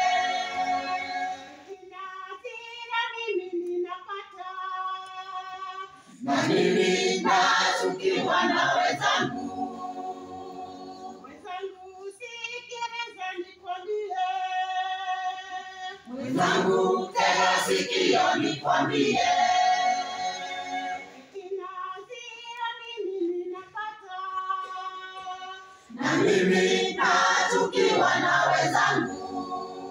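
Women's church choir singing a Swahili hymn. Quieter passages carried by one or a few voices alternate with louder full-choir passages, about every ten seconds.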